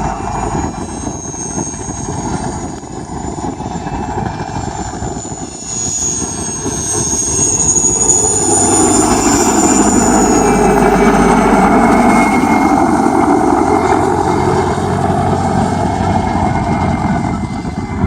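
Mil Mi-2 helicopter's twin turboshaft engines and rotor running, with a high turbine whine, growing louder about six seconds in, loudest in the middle, then easing off.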